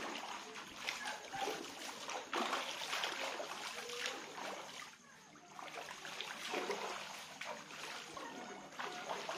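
Seawater splashing in repeated irregular bursts, with a short lull about halfway through.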